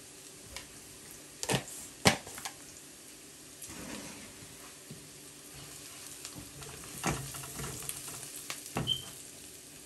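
Sliced onions frying in oil in a non-stick wok, a low steady sizzle. Two sharp knocks come about a second and a half and two seconds in. In the second half a spatula scrapes and stirs through the onions and spices against the pan.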